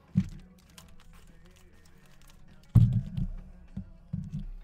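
Handling noise from a cardboard case of trading-card boxes being opened on a table. A sharp knock comes just after the start, a loud thump nearly three seconds in and two smaller thumps near the end, with light clicking and crackle between.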